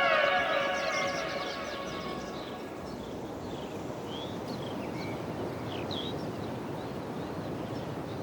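The last notes of background music slide down in pitch and fade away over the first couple of seconds. After that there is a steady outdoor ambience, with scattered short bird chirps.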